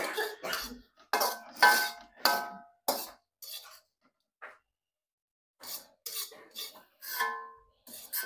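Metal spatula scraping and knocking against a metal wok as fried rice is scooped out, about a dozen strokes, some leaving the wok ringing briefly. There is a pause of about a second midway.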